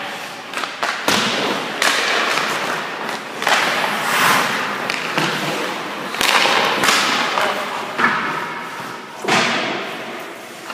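Ice hockey shots in a rink: about eight sharp cracks of sticks on pucks and pucks thudding off the goalie's pads and the boards, each with a hissing scrape and echo, mixed with skate blades scraping the ice.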